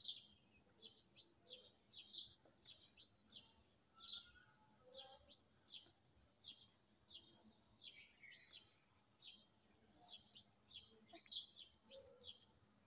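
Gel pen writing on lined notebook paper: faint, quick scratchy strokes, about two a second, with a brief lull partway through.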